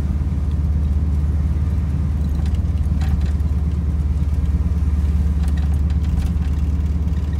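A truck's engine running while driving, heard from inside the cab as a steady low drone, with a few faint ticks over it.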